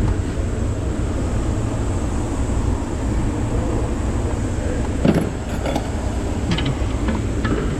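Steady low rumble with a handful of short metallic clicks and clinks from hand tools working on engine bolts; the loudest click comes about five seconds in.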